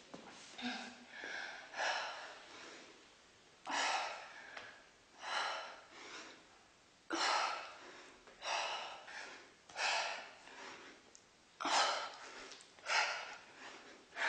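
A woman breathing hard in rhythm with push-ups: a sharp, hissy breath roughly every second and a half.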